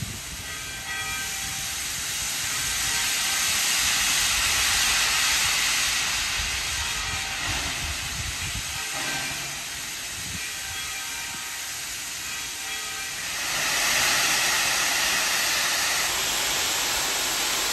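Steam-hauled heritage passenger train pulling away: coaches rolling past on the rails with a steady hiss of steam from the locomotive. The noise swells about four seconds in and again at about fourteen seconds.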